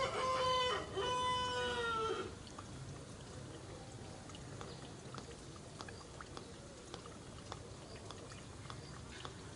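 Baby macaque crying: two drawn-out, high-pitched wails in the first two seconds, the second trailing slightly downward at its end. Small scattered ticks and rustles follow.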